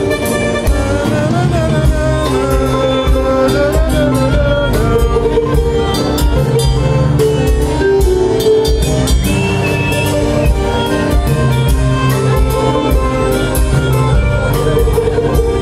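Live band playing a song on acoustic guitar, electric bass and drum kit, with a woman singing the melody into a microphone.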